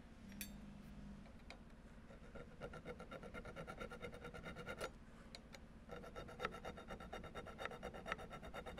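Small hand tool scraping and rasping on a threaded steel chamber sleeve held in a vise: a rapid, ringing metallic ticking that starts about two seconds in, stops briefly near the five-second mark, then resumes.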